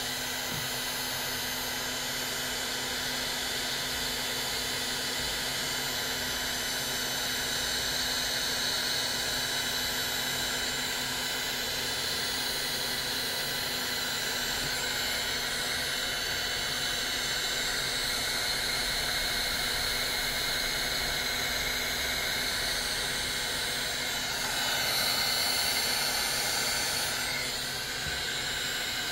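Electric heat gun blowing hot air steadily, shrinking heat-shrink tubing over wire connectors. Its rushing fan noise stays even, growing a little louder for about three seconds near the end.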